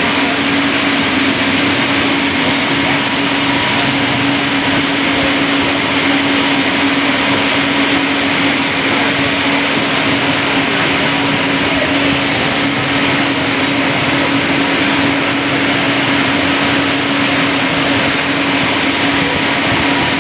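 Steady, loud machine whir with one constant low hum tone and even hiss, unchanging throughout: a motor or blower running continuously.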